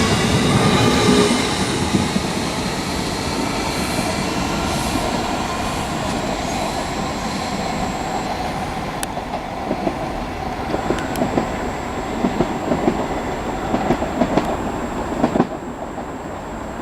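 Class 333 electric multiple unit moving slowly through the station, its wheels rumbling along the rails. Over the second half come irregular knocks and clicks of wheels crossing rail joints or pointwork, which stop shortly before the end.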